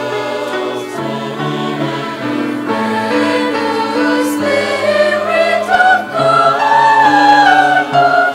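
Church choir singing sacred music in parts, holding long chords that change step by step. A higher voice with wavering held notes comes to the front in the second half.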